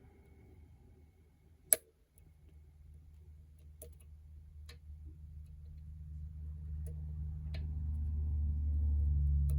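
Lock pick working the pins of an ASSA 700 lock: sparse small clicks, with one sharp, much louder click about two seconds in. A low rumble builds up under the clicks through the second half.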